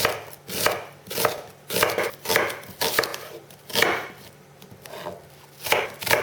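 Kitchen knife slicing onions thinly against a cutting board in regular strokes, about two cuts a second, with a pause of a second or so a little past the middle.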